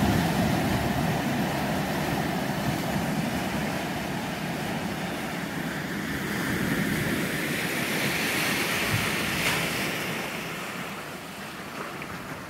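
Ocean surf breaking and washing up over a sandy, rocky beach as a steady rush, swelling into a hiss partway through and falling off near the end.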